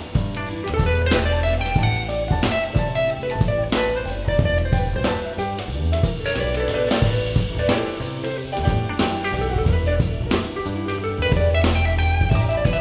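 Instrumental soul-jazz music with drum kit, bass and guitar, played back as heard through in-ear monitors.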